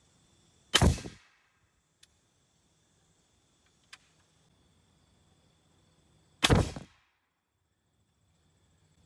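AirForce Texan .45 big-bore air rifle, fitted with an African Air Ordnance high-pressure valve, fired twice about six seconds apart. Each shot is a sharp, loud report that dies away quickly.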